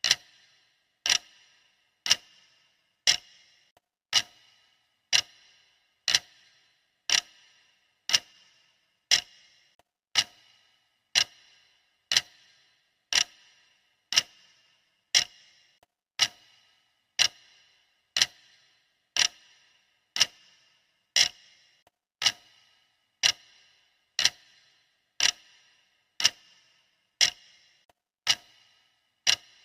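Countdown timer's clock-tick sound effect: sharp, steady ticks, one each second, each with a short ring.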